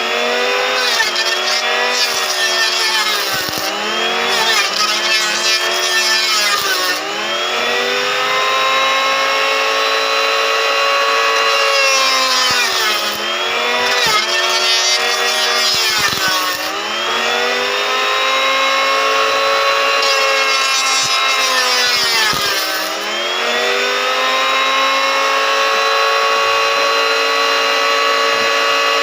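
Small electric motor of a mini jointer running with a high whine. Its pitch sags and recovers about five times as the cutter takes load, consistent with wood being fed across it.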